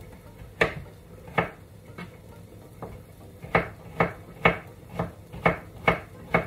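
Kitchen knife chopping vegetables on a cutting board: about eleven sharp knocks at an uneven pace, closer together in the second half.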